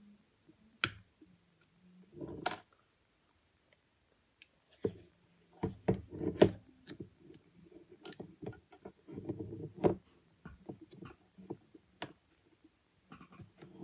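Clicks, taps and light knocks of a Canon 70D DSLR's plastic body being handled and turned over on a wooden desk during disassembly. A few separate clicks come first, then a busier run of clicks and rustling handling noise through the middle.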